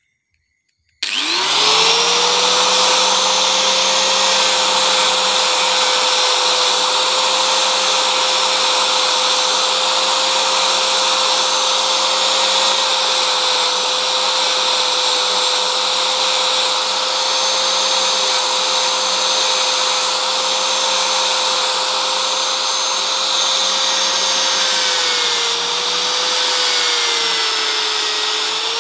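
Electric angle grinder fitted with a sanding disc, switched on about a second in: it spins up with a quick rising whine, then runs at a steady pitch. Near the end the pitch dips and wavers as a piece of sonokeling rosewood root is pressed against the disc and sanded.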